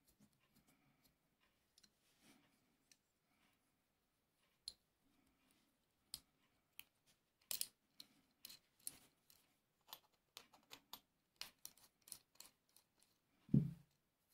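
Small metal clicks and taps as the parts of a miniature miquelet flintlock are handled and a small wing-screw mainspring vise is fitted onto it. The clicks come scattered, then in a quicker run through the middle, with one louder, duller knock near the end.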